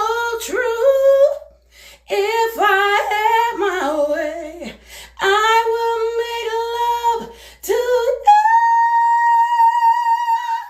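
A woman singing soulful, near-wordless vocal runs that bend up and down, with two short breaks for breath. About eight seconds in she settles on one long held high note that lasts to the end.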